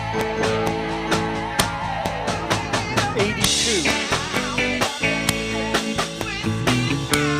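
Electric guitar played through a Boss SY-1000 guitar synthesizer with a GK divided pickup, over a drum beat. Held notes with vibrato give way to sliding pitch bends, with a wash of hiss about halfway through.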